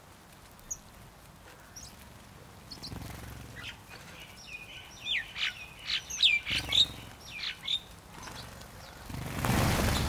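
A flock of house sparrows chirping, with a cluster of quick, loud chirps in the middle. Near the end comes a short rush of wingbeats as the flock takes off from the feeding spot.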